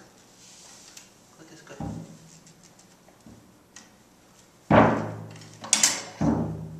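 Drums of a small drum kit being struck. A soft thud comes about two seconds in, then three loud hits with a ringing, booming tail in the last two seconds.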